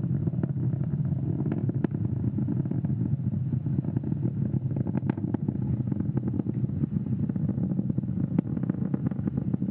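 Onboard audio from a Falcon 9 first stage in powered flight: the steady low rumble of its nine Merlin 1D engines, dull with no high end, dotted with faint crackles and clicks.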